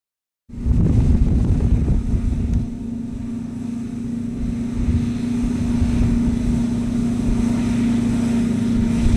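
After half a second of silence, a John Deere self-propelled forage harvester with a 692 row header runs under load, cutting and chopping standing wheat for silage: a steady machine drone with a strong constant hum. Wind rumbles on the microphone.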